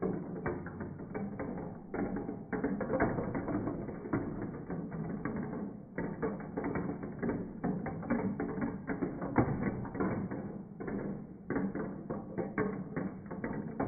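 Glass marbles rolling and clattering through a plastic marble run, a dense run of irregular clicks and rattles, heard slowed down and deepened along with the slow-motion footage.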